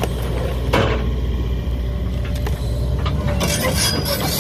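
A 135D excavator's diesel engine running steadily while its bucket and tracks crush a wrecked motorhome, breaking wood, sheet metal and glass: one sharp crash about a second in, then a run of crackling and clinking debris near the end.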